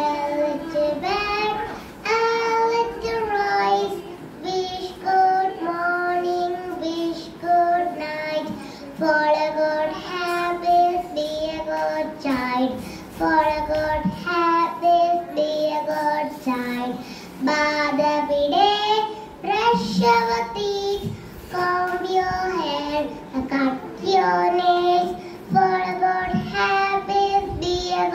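Young girl singing solo, a simple tune in held notes broken into short phrases.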